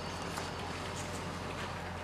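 A man eating pancakes: chewing, with a few faint clicks and taps, over a steady background hum and hiss.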